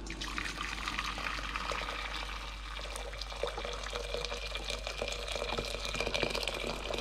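Boiling water poured in a steady stream from an electric kettle into a stainless steel saucepan, splashing into the filling pot.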